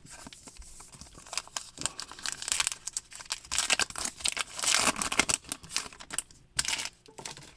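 Trading cards and their packaging being handled, with irregular crinkling and rustling and small clicks.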